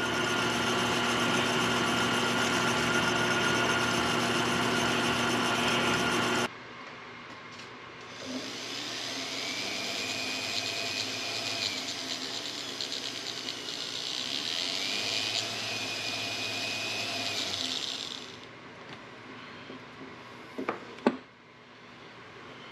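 A small lathe spins a ring at a steady hum while the ring is wiped with polishing wax on a cloth, then cuts off suddenly after about six seconds. A bench buffer's cloth wheel then runs with the ring held against it, a tone rising and falling twice. Near the end it stops and there are a couple of sharp knocks.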